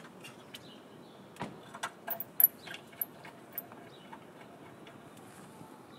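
Irregular metallic clicks and taps from a hand tool and fasteners as a steel bar is bolted back onto a car's front end. Most of them come in a cluster from about one and a half to three and a half seconds in.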